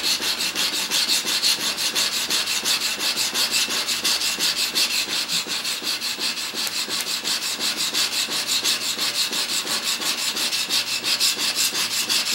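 Steel chisel bevel scraped in quick, even back-and-forth strokes on an extra-coarse DMT diamond sharpening plate, held in a General sharpening jig: a steady rhythmic rasping. This is coarse regrinding of the bevel at a slightly steeper angle, to merge the old and new facets into one.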